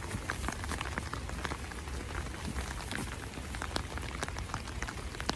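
Rain falling steadily, its drops hitting as many small, irregular sharp ticks over a hiss, with a steady low rumble underneath.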